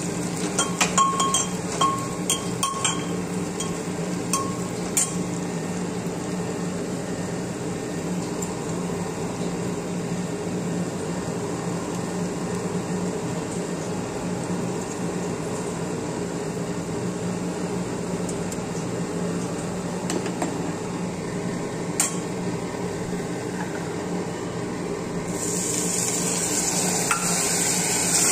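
A steel spatula clinking and scraping against an aluminium pressure-cooker pot while onions fry in oil, with sharp ringing clicks in the first few seconds and then a steadier stir over a constant background hum. A louder hiss rises near the end.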